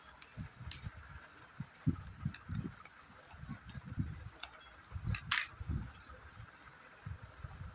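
Kinder Joy plastic capsule halves and wrappers being handled: scattered light plastic clicks and crinkles over soft low thumps of handling, with a louder crackle a little past the middle.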